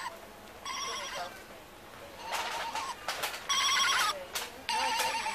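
Sound chip in a rubber toy ram, pressed by hand, playing a tinny electronic sheep bleat through its small speaker: three short bleats with a wavering pitch, about a second in and twice near the end. Clicks and handling noise from the toy come between them.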